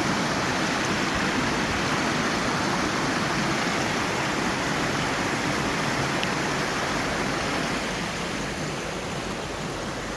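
Waterfall and river water rushing steadily, a little softer in the last two seconds or so.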